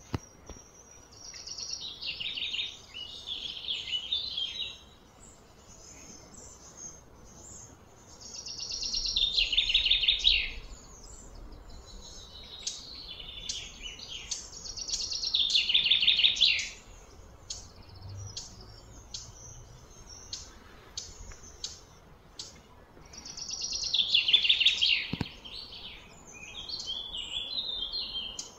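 A bird singing loud, buzzy trills, four long ones several seconds apart. Each swells, slides down in pitch and stops sharply, with short high chirps in between.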